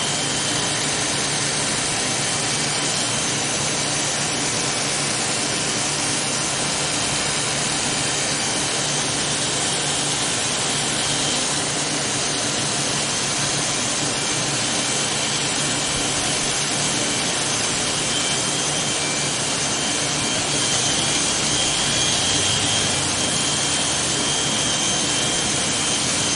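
Electric hair clippers running steadily while cutting short hair on the side of the head, a little louder in the last few seconds.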